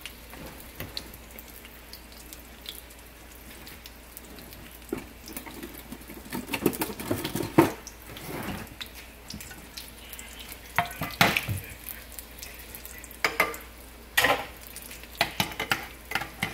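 Batter-coated green-bean bundles frying in oil in a skillet, a soft steady sizzle. From about six seconds in, kitchen utensils and dishes clatter, with several sharp knocks.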